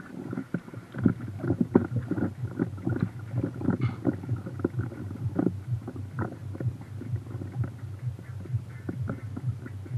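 River water lapping and splashing against a camera mounted at the waterline, in many irregular small slaps over a steady low hum.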